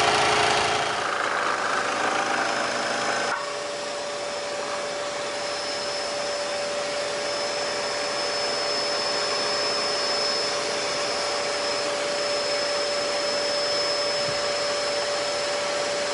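Scheppach DECO FLEX scroll saw with its 90-watt motor running steadily, a continuous mechanical whir with a steady whine. About three seconds in the sound changes and gets slightly quieter, then holds steady.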